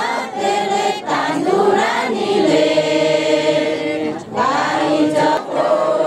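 A group of village women singing the cowongan rain-calling chant together, in long held notes with short breaks between phrases.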